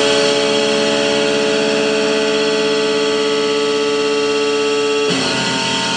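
Electric guitar played loud, one struck sound held ringing steadily for about five seconds, then a new one struck and held.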